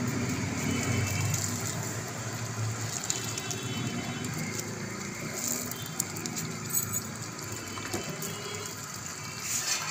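Chicken in a yogurt gravy simmering in a steel pot over a raised stove flame, a steady bubbling as the yogurt releases its water.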